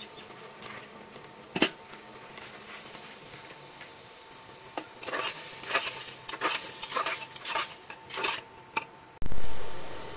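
A metal spoon scraping and clinking against an aluminium pressure cooker as split chickpeas are stirred into the fried masala, with one sharp knock between one and two seconds in. About nine seconds in, a loud rush as water is poured into the hot pot takes over and then fades.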